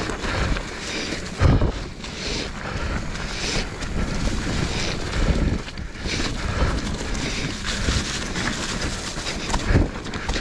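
Hardtail mountain bike rolling over rocky trail with wind rushing over the microphone: a steady rumble of tyres on rock, with sharp knocks as the bike hits rocks, the loudest about a second and a half in.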